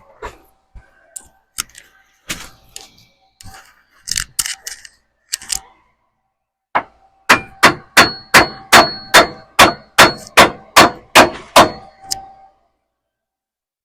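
Hammer striking steel, ringing: a few scattered knocks, then a quick run of about a dozen hard, evenly spaced blows that stops suddenly.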